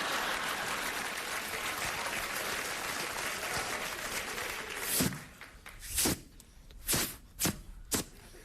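Studio audience applauding, dying away about five seconds in, followed by about five sharp percussive sound effects made by mouth into a microphone, each a short hit, roughly one every half second to second.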